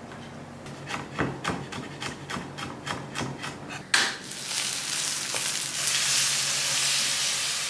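A quick run of knocks, about four a second. About four seconds in, a portable gas stove's igniter clicks once, and then chicken pieces in a grill pan sizzle steadily, growing a little louder.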